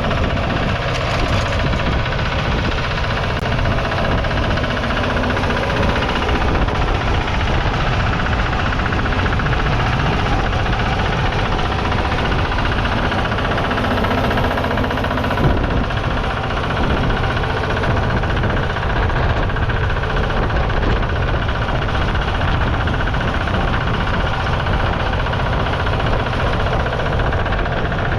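Petter PD1 600cc single-cylinder diesel engine of a 1962 Crawley 75 200 mini tractor running steadily with a knocking beat.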